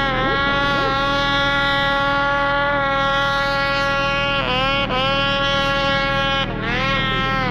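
Snowmobile engine held at high revs, a steady high-pitched whine whose pitch dips briefly and climbs back a couple of times, about halfway through and again near the end.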